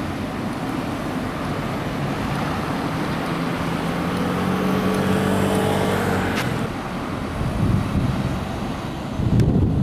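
Road traffic: a car's engine note grows and passes by around the middle, over a steady wash of wind and road noise.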